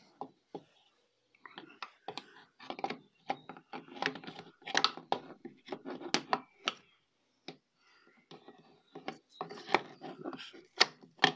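Gear selector housing of a Vauxhall F17 gearbox being worked by hand onto the gearbox casing's dowels over a gasket: an irregular run of metal clicks, knocks and scrapes, pausing briefly around seven seconds in before carrying on.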